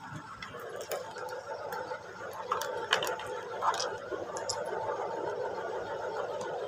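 Clicks and scraping of a quarter-inch jack plug being handled and pushed into the output socket of a Roland SPD-30 drum pad, the sharpest click about three seconds in, over a steady hum that grows a little louder about two seconds in.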